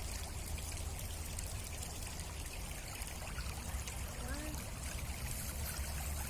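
Steady trickling, flowing water, with a low rumble underneath.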